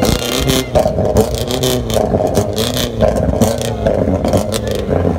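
Street din around cars in a dense crowd: vehicle engines revving, their pitch rising and falling, with clattering noise on top.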